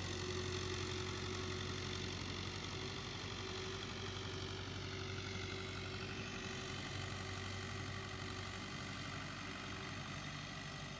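Tractor engine running steadily while the tractor pulls a laser land leveler some way off, a low even hum that slowly fades.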